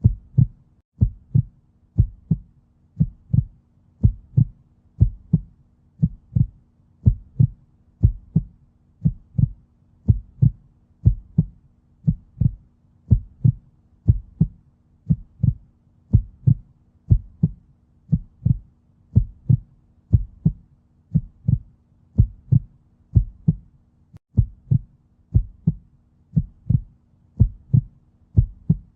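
Heartbeat: steady lub-dub double beats at about one a second, with a faint low steady hum beneath.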